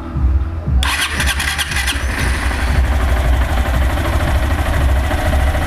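A Honda CG 160's single-cylinder four-stroke engine being started. It catches suddenly about a second in and settles into a steady idle. This is its first start after the valve train was reassembled to cure a ticking noise.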